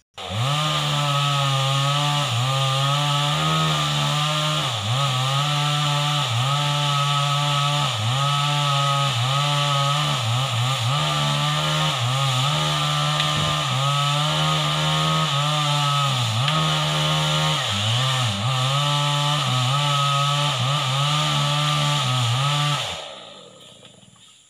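Two-stroke chainsaw running at high speed under load, its engine note dipping briefly every second or two as it bogs in the cut. It cuts in suddenly at the start and fades away near the end.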